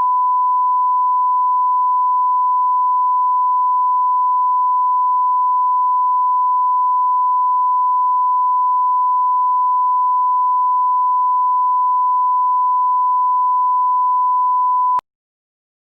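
A loud, steady 1 kHz electronic test tone, one pure pitch held without a break, cutting off suddenly about fifteen seconds in.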